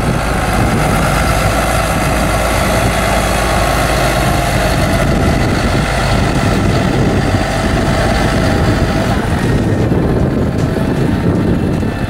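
Claas Lexion 530 combine harvester running, a steady loud machine drone.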